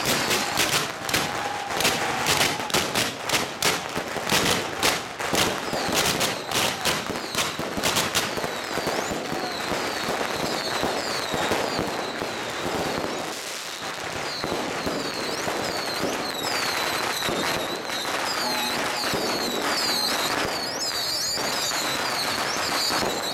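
Strings of firecrackers going off in rapid, dense bangs for the first several seconds, then settling into a steady crackle with many short chirping whistles in the second half.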